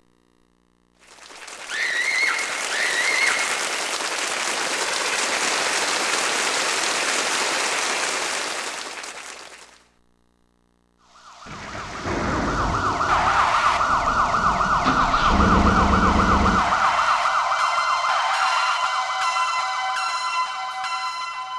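Synthesized sound effects from a karaoke machine's Roland SC-88 sound module. First comes a swell of hiss lasting about nine seconds, with a couple of short chirps near its start. After a brief pause comes a fast-warbling, siren-like tone, with a low rumble under its first five seconds and ringing tones building near the end.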